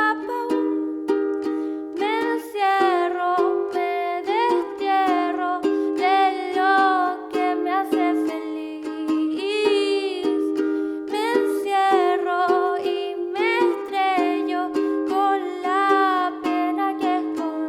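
A song performed live: a strummed acoustic string instrument holding chords under a sung, wavering melody.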